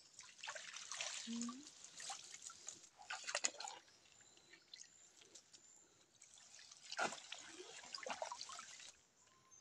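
Water splashing and running off a collapsible umbrella-style net fish trap as it is handled and lifted out of a shallow stream, in two bouts, the second starting about seven seconds in.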